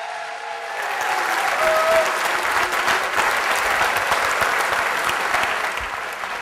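A large audience applauding, the clapping building about a second in and easing off toward the end.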